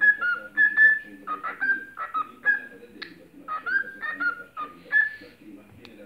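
Cockatiel singing: a quick run of short whistled notes, many sliding up or down in pitch, in phrases broken by brief pauses about three seconds in and near the end.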